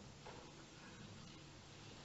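Near silence: faint room tone with a steady low hiss.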